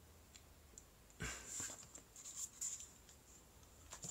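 Faint handling noises of a small drinking cup near the microphone: a few short rustles and scrapes a second or so in, and a click near the end as the cup is raised to drink.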